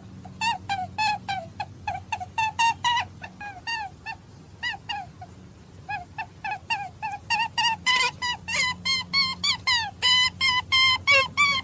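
Rapid series of short, high-pitched animal calls, about four a second, with a brief pause midway, then denser and louder as more calls overlap near the end.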